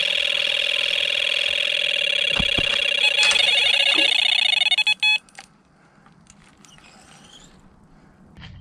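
Carp fishing bite alarm sounding one continuous tone, the sign of a fish running and taking line. The tone cuts off sharply about five seconds in, with a couple of knocks shortly before; faint clicks follow.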